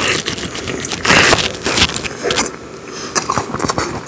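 Close-miked eating sounds of a man biting and chewing a piece of braised spicy chicken (dakbokkeumtang) taken from chopsticks. The loudest noisy mouthful comes about a second in, and it eases off a little before the end.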